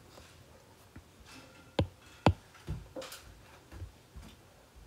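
Stylus tapping on a tablet's glass screen: a few light, sharp clicks, the two sharpest about two seconds in, half a second apart.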